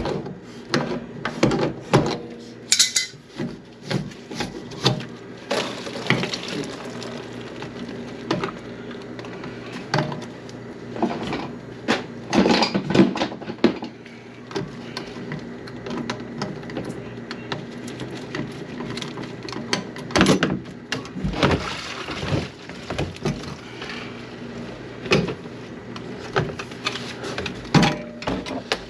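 Irregular knocks and clatter of hard objects being handled, over a steady low hum.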